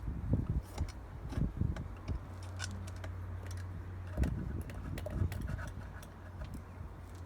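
Small metallic clicks, taps and knocks of metal parts being handled and worked into place on a 50cc mini moto, scattered and irregular. A steady low hum starts about two seconds in.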